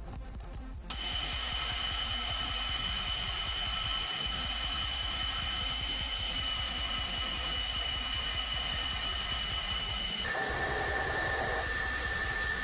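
Metal lathe cutting: a steady hiss with a constant high-pitched whine from the cut, switching to a different whine about ten seconds in.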